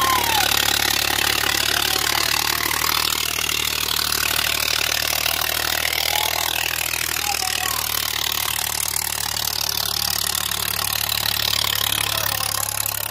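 Eicher 557 tractor's three-cylinder diesel engine running steadily while the tractor sits stuck in soft soil with a disc harrow hitched behind, its rear tyres dug in.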